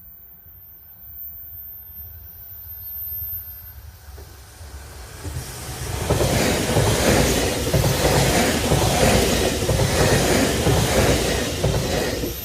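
JR 383 series limited-express electric train approaching and passing: a low rumble that builds over the first few seconds, turning to a loud rush of wheels on rail about six seconds in, with a rhythmic clatter of wheels over the rail joints.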